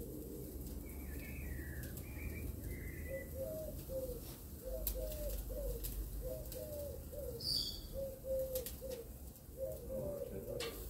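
A pigeon cooing: a short phrase of low, soft coos repeated about every one and a half seconds, starting a few seconds in. A smaller bird chirps a few times near the start.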